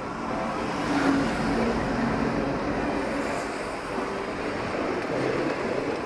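Indian Railways passenger train running past close by, wheels and coaches rattling over the rails, loudest about a second in.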